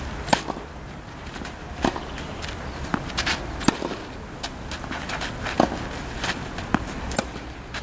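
Tennis balls being struck by rackets and bouncing on the court during a rally: a string of sharp pops at irregular spacing, roughly one a second.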